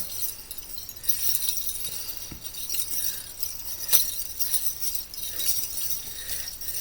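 Light metallic jingling and tinkling throughout, with one sharp click about four seconds in.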